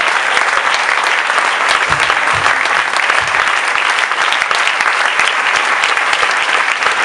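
A congregation applauding: dense, loud clapping throughout.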